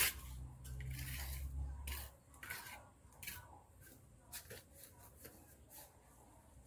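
Faint scattered rustling and snapping of foliage and stems being handled at a tree, with a low rumble during the first two seconds.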